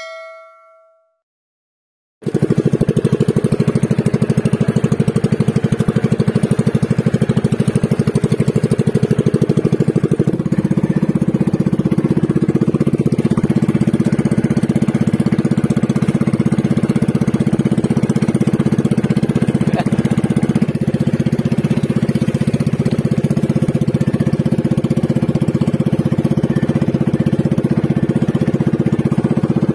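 A short ringing chime at the very start, then the small engine of a motorised outrigger boat (bangka) running steadily under way, a fast even putter with a low drone; its note shifts slightly about ten seconds in and it cuts off abruptly at the end.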